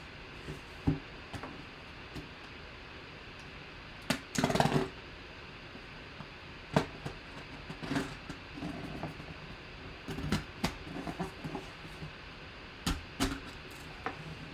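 A cardboard box is handled on a tabletop: scattered knocks and clicks as it is moved and set down, with a short scraping rasp about four seconds in. Later a small blade slices through the packing tape along the box's seam, with rustling and scraping.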